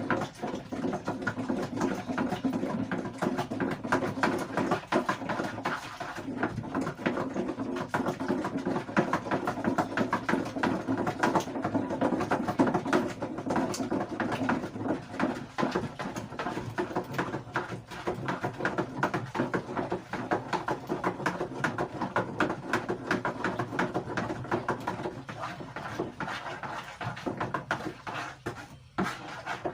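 A liquid mixture being stirred by hand in a container, a continuous rubbing and scraping with many small knocks of the stirrer against the sides, as an ingredient is dissolved.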